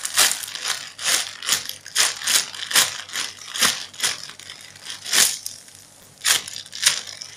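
Clear plastic packaging bag crinkling as a foam squishy toy inside it is squeezed by hand, in a quick run of rustling bursts that eases off a little past the middle before a few more.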